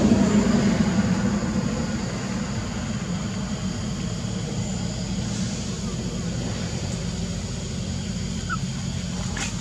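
Low, steady engine hum of a motor vehicle, loudest at first and easing off over the first two seconds, then holding steady. A short faint squeak comes near the end.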